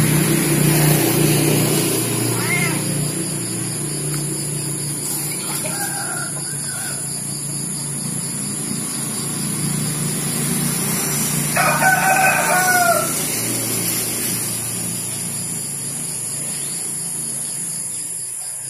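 A rooster crowing: shorter calls about 2.5 and 6 seconds in, then one longer, louder crow a little past the middle, over a steady low hum.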